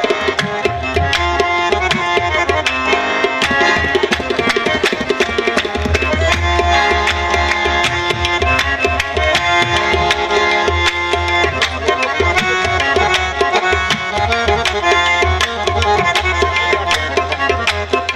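Qawwali instrumental opening: harmonium playing a melody of held reed tones over fast, steady tabla strokes.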